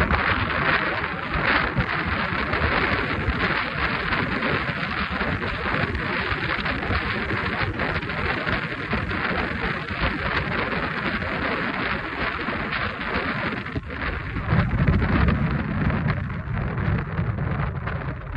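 Wind buffeting a phone's microphone: a steady, rough rushing noise that flutters constantly, with a stronger, deeper gust about fifteen seconds in.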